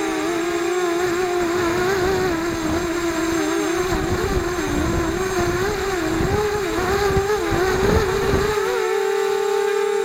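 FPV quadcopter's electric motors and propellers whining, the pitch wavering up and down with quick throttle changes. From about four seconds in a low rushing rumble joins, dropping away shortly before the end as the whine settles to a steady pitch.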